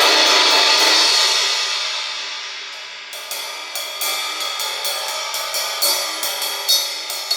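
17-inch Zildjian I trash crash cymbal played: a loud washy swell that rings and fades over the first few seconds, then a steady run of quick strokes, about three to four a second, with a few louder accents near the end.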